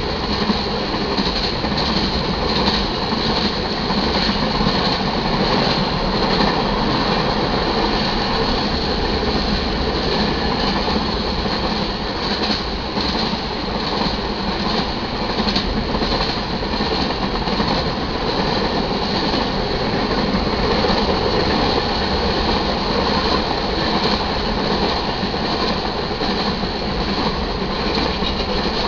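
Freight train cars, tank cars and covered hoppers, rolling past: a steady rumble and clatter of steel wheels on the rails.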